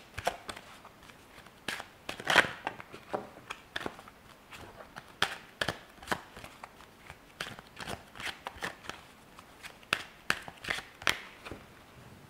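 A deck of cards being overhand-shuffled by hand: irregular sharp flicks and slaps as packets of cards are pulled from one hand to the other, loudest a little over two seconds in.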